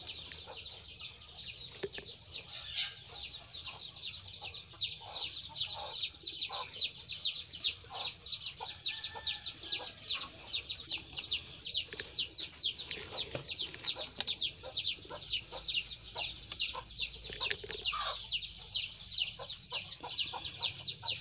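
A bird peeping over and over in the background, about three or four short, high, falling chirps a second, with faint handling clicks beneath.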